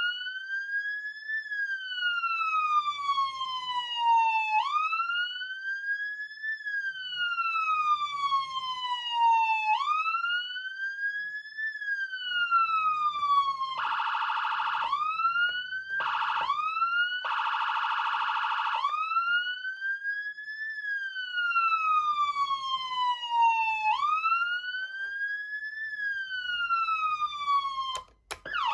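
Whelen ALPHA electronic siren amplifier sounding a wail tone: a slow rise and fall in pitch that repeats about every five seconds. Three times in the middle, a harsh buzzing tone sounds over the wail. Near the end it cuts out with a click.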